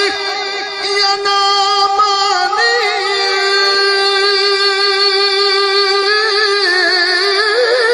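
A man's voice singing long held notes of a devotional manqabat into a microphone, with a slight wavering in the pitch, which climbs near the end.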